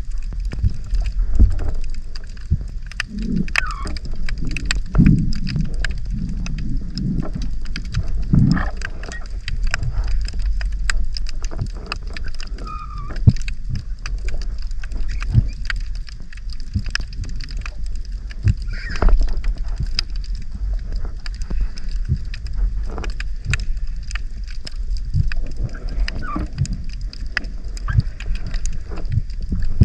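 Water moving and gurgling around an action camera in the sea, heard as a low rumble with many small clicks and a few gurgles.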